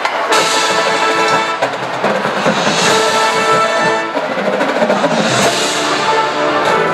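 Music with brass and drums playing.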